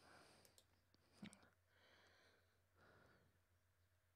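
Near silence: room tone with a few faint breaths and a small click about a second in.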